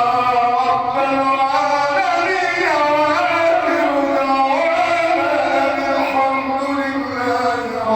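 A man chanting an Islamic supplication (du'a) in a continuous melodic line, holding long notes that waver and glide between pitches.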